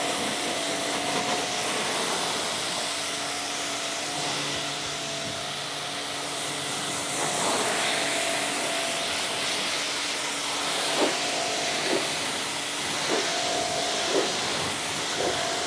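QPT Q5 electric high-pressure washer running, its motor humming steadily under the hiss of the fan-spread water jet striking a car's muddy bodywork.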